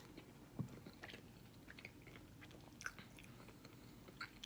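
Faint close-up chewing and biting of a fried chicken sandwich: soft scattered crunches and mouth clicks.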